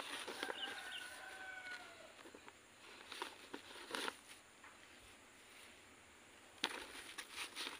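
Dry, sawdust-like potting medium rustling and crackling in plastic polybags as hands scoop it and press it around a stem cutting, with scattered light taps and one sharper tap near the end. A faint drawn-out animal call sounds in the first two seconds.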